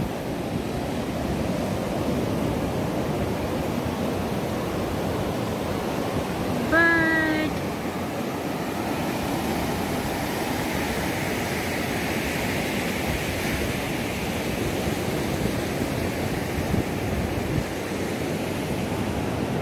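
Ocean surf breaking and washing up the beach in a steady rush. One short, high cry about seven seconds in.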